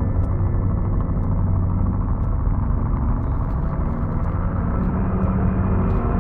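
Low, steady ambient drone from a horror film score, heaviest in the bass, with faint held tones above it.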